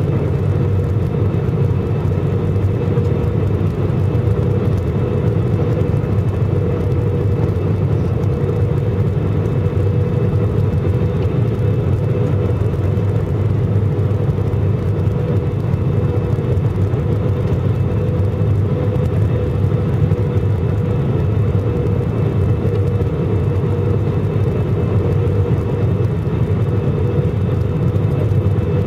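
Airliner cabin noise on final approach: the steady low rumble of the turbofan engines and rushing air, with a faint steady tone above it.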